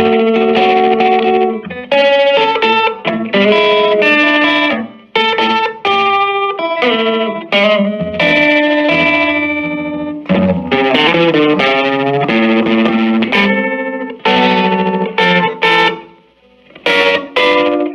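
Electric guitar played through a 1965 Silvertone 1484 tube amp: a run of picked notes and chords, a brief gap about sixteen seconds in, then a few short, sharp chords.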